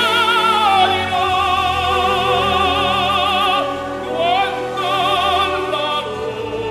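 Background music: operatic singing with orchestral accompaniment, the voice holding long notes with a wide vibrato.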